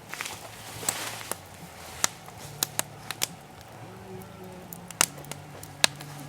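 Campfire crackling, with sharp, irregular pops from the burning wood, about a dozen in a few seconds.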